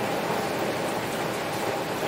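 Heavy rain falling steadily on a window: an even, unbroken hiss of dense drops.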